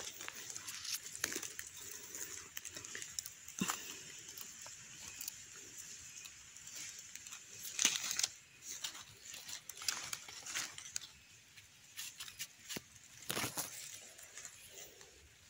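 Dry leaf litter rustling and crackling, with scattered sharp clicks and scrapes, as a mushroom is dug from the forest floor and picked up by hand. A few louder crackles come near the middle and near the end.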